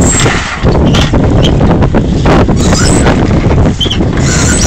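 Strong wind buffeting the phone's microphone on a sailboat, a loud low rumble with irregular rustles and knocks from the sail and handling.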